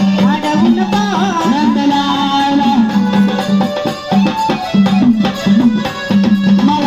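Marathi gondhal devotional folk music: a gliding melody over a steady held drone note, with hand-drum percussion.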